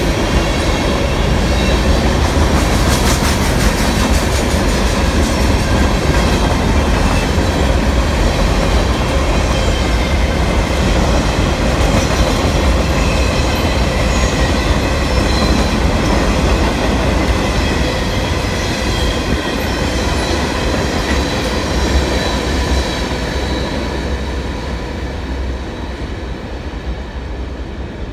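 A freight train's cars rolling past: a steady heavy rumble of steel wheels on rail with some clatter, and thin steady high whining tones from the wheels. The sound fades away near the end as the last car goes by.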